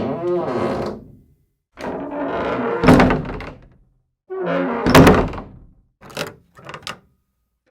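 A run of separate short sound-effect clips with silent gaps between them, two of them with a heavy thud, about three seconds and five seconds in, followed by two brief short sounds.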